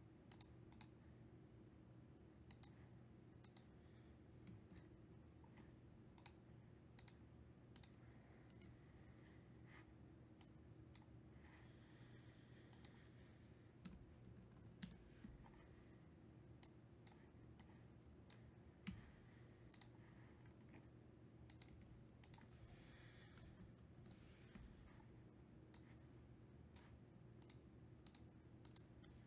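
Faint, scattered keystroke clicks of typing at a computer keyboard, over a low steady hum.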